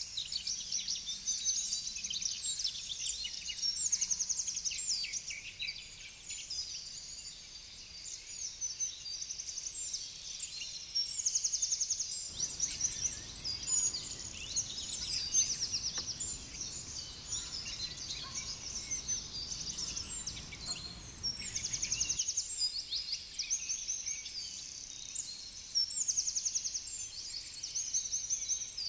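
Several small songbirds singing at once, a dense chorus of overlapping chirps and quick high trills. A faint low noise joins underneath for a stretch in the middle.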